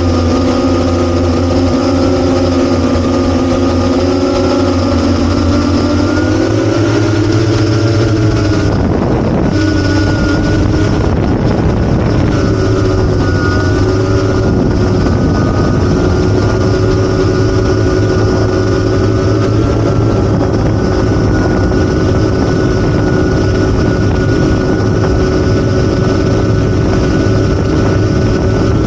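8-inch FPV quadcopter's brushless motors (T-Motor F90) and propellers whining steadily. The pitch climbs, then dips sharply about a third of the way in as the throttle changes, before settling to a steady whine.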